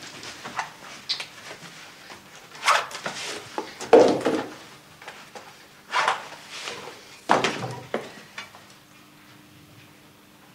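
Several separate knocks and clatters of things being handled, with rustling in between. A faint steady hum comes in near the end.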